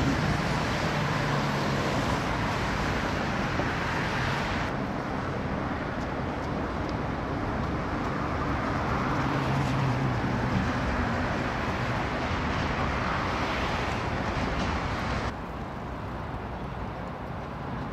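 Steady outdoor city ambience of traffic noise, a continuous rumble and hiss with a low hum at times. It changes abruptly twice, about 5 and 15 seconds in, and is quieter after the second change.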